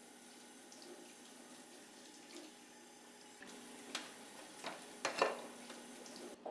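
Water running from a kitchen tap into the sink, with a few short clatters of dishes being set into a plastic dish rack in the second half.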